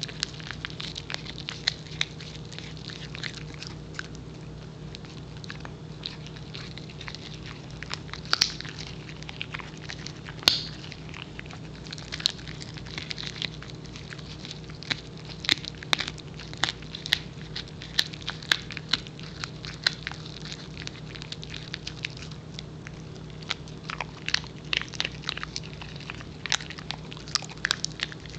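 A Pembroke Welsh Corgi chewing a dried beef pizzle (bully) stick: irregular crunches and clicks of teeth gnawing the hard chew, coming thicker near the end.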